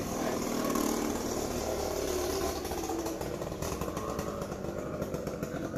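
A small engine running, its pitch rising and falling.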